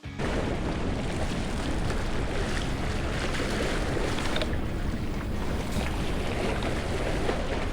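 Steady rush of wind on the microphone mixed with sea noise at the shore, with a few faint clicks.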